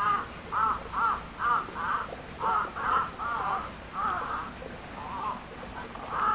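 Crow cawing repeatedly: a quick run of short caws about two a second, spacing out to roughly one a second in the second half.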